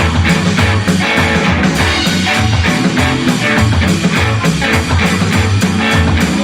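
Rock and roll band playing an instrumental stretch: guitar over a walking bass line and a steady drum beat.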